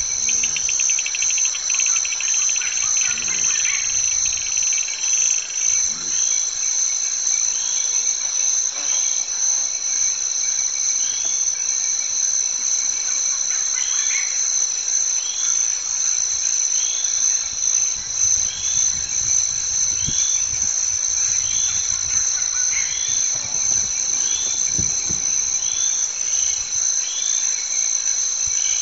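Dense chorus of insects shrilling in steady high-pitched bands with a slight pulse, and a short chirp repeating about once a second through the latter two-thirds.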